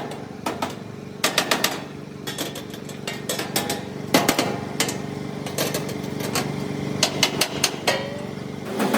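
Bursts of rapid, sharp metal striking in short runs of several blows, over a steady machine hum.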